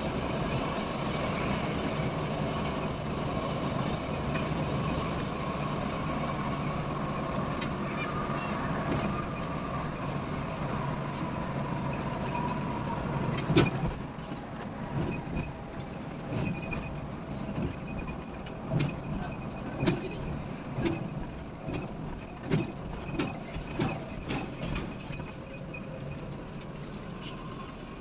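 Cabin noise of an intercity coach cruising: a steady engine and road rumble. About halfway through there is a sharp knock, the rumble drops as the coach slows, and a run of irregular knocks and rattles follows.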